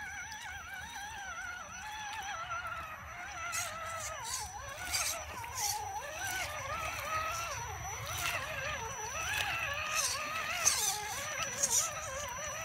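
Axial Wraith RC crawler's 35-turn electric motor and gears whining, the pitch wavering up and down with throttle and load as it drives through mud and water. Several short splashes are heard over it.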